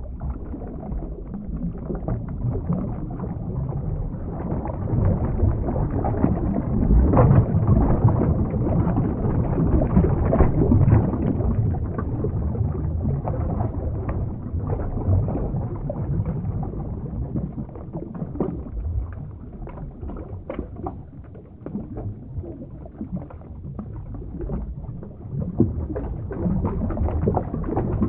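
Underwater ambience sound effect: a steady low rumbling wash of water with scattered crackles, swelling louder in the middle.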